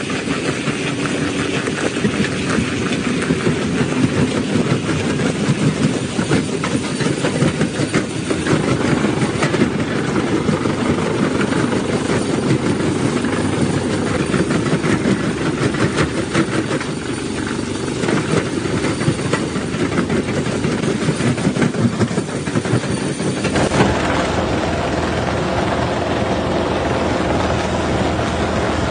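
Rock crusher breaking stone: a loud, dense, continuous rattling and crunching of rock. About 23 seconds in the sound changes abruptly to a deeper, steadier rumble.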